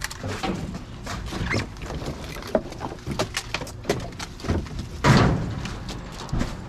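Rustling and clunking of junk being handled and moved about, with short knocks throughout and one loud thud about five seconds in.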